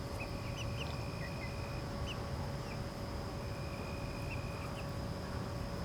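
Outdoor yard ambience: scattered short, faint bird chirps over a steady high drone and a low rumble.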